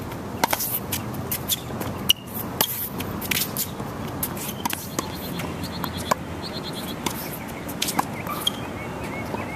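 Tennis ball struck by a racket and bouncing on a hard court, a series of sharp pops at irregular intervals over a steady outdoor hiss.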